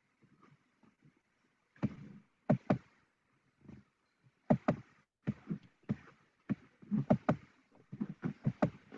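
Irregular sharp knocks and taps, often in quick pairs or clusters, starting about two seconds in and coming several times a second toward the end.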